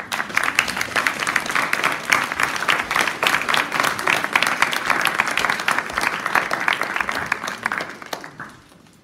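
An audience of several dozen people applauding, a dense patter of many hands clapping that fades out about eight seconds in.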